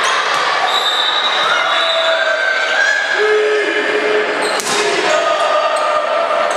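A crowd in a gymnasium shouts and cheers through a volleyball rally, with held calls echoing in the hall. A single sharp smack comes about four and a half seconds in, as a hand strikes the ball.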